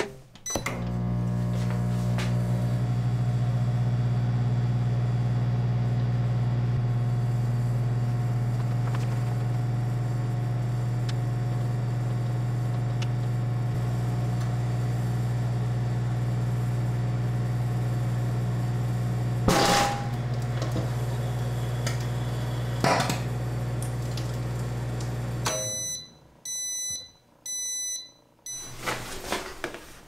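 Microwave oven running on a heating cycle with two eggs inside, a steady electrical hum; a sharp pop about two-thirds of the way through and another a few seconds later, as the eggs burst. The hum then stops and three short beeps signal the end of the cycle.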